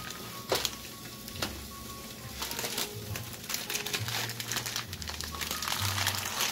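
Plastic pasta bag crinkling with sharp clicks and crackles as dry macaroni is shaken into a pot of boiling water, over quiet background music.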